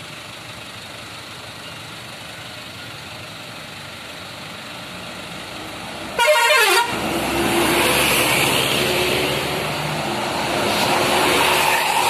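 Traffic hum of idling vehicles, then a short, loud horn blast from a tour coach about six seconds in. The coach's diesel engine then runs louder as it pulls up close.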